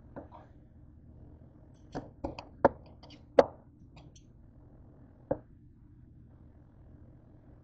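Knife cutting through slow-cooked chicken breast, the blade knocking on the cutting surface in a handful of sharp, irregular taps. They cluster about two to three and a half seconds in, with one more a little past five seconds.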